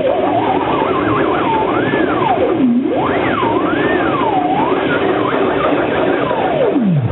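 A homemade blower-driven sound machine running: one pitched wail that slides smoothly up and down from low to high and back, wobbling quickly in places, over a steady rush of air and motor noise.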